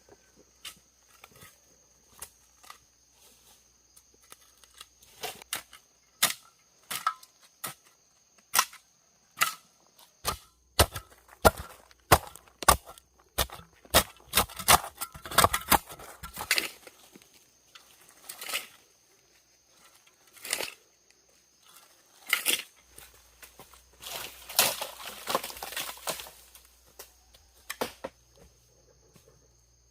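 Wood being chopped and snapped: irregular sharp cracks and knocks, coming thick and fast through the middle, with a longer stretch of crackling near the end.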